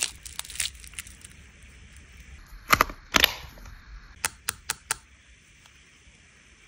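Clear plastic film crinkling against a red plastic compact case. Then two loud clicks as the compact's lid is pressed shut, followed by four quick light clicks.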